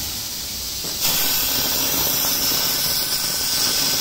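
SENFENG fiber laser cutting steel plate: the cutting head's assist gas hisses steadily, then gets louder about a second in as the cut begins, joined by a thin steady whine.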